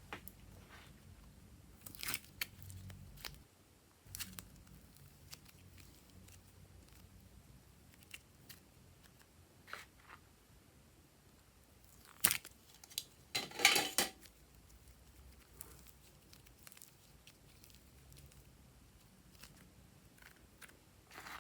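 Slime being worked by hand: scattered sticky clicks and crackles, with a louder cluster of crackling about twelve to fourteen seconds in.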